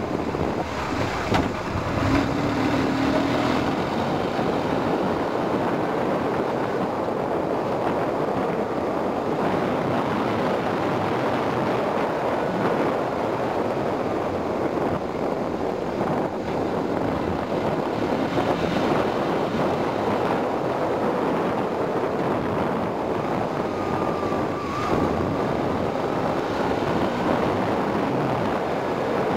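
Steady rush of wind over the microphone on a moving motorcycle, with engine and road noise underneath, holding an even level throughout.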